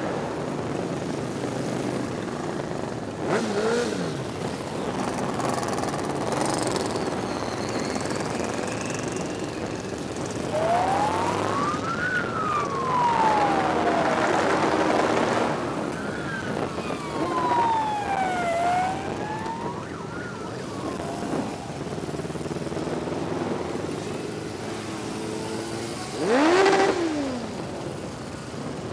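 Motorcycles riding past one after another, each engine swelling and falling away as it goes by, the loudest pass near the end. In the middle a siren wails up and down twice.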